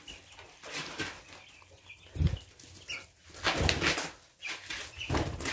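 Quail flapping their wings and scrambling on the pen floor as a person tries to catch one, in irregular flurries about two seconds in, around three and a half seconds in and again near the end.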